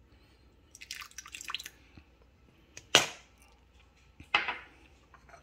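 Calamansi juice poured from a small bowl into a stainless steel mixing bowl, a short spatter of faint ticks about a second in. Then two sharp knocks of a utensil or dish against the steel bowl, the first at about three seconds the loudest, the second weaker at about four seconds.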